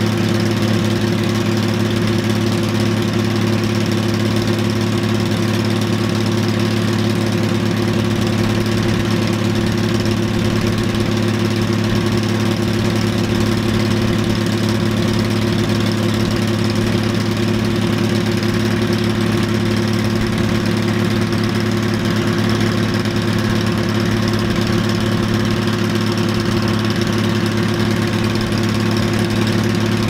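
1962 Allis-Chalmers Gleaner A combine running steadily at one constant speed, its unloading auger emptying the grain tank.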